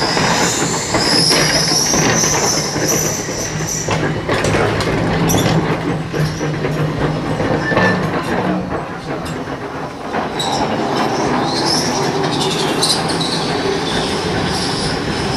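Open toastrack electric tram running past on its rails, its wheels squealing during the first few seconds and again past the middle, over a low steady hum and scattered clicks from the wheels.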